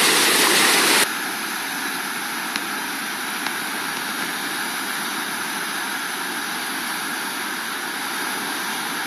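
Steady rushing of a high-running river through a standing wave. The rush drops suddenly to a quieter, more distant level about a second in.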